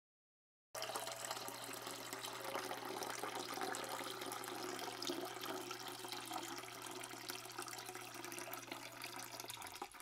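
Water pouring and trickling into the plastic bottles of a homemade gravity-fed bottle fountain. The sound starts about a second in and runs steadily, with a faint low hum under it that stops near the end.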